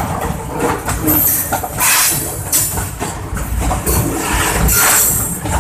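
A train passing close by: a continuous low rumble with repeated surges of hissing, clattering noise.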